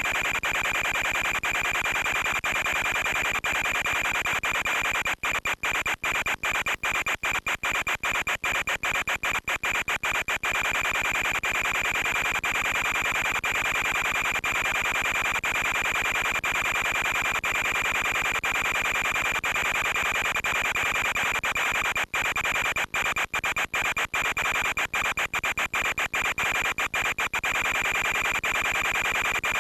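Steady hiss of radio static with a fixed high whine, broken by many quick dropouts about five seconds in and again after about twenty-two seconds.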